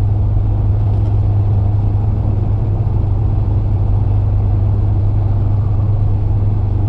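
2008 BMW 335i with the twin-turbo N54 straight-six cruising at highway speed: a steady low drone of engine and road noise that holds even throughout.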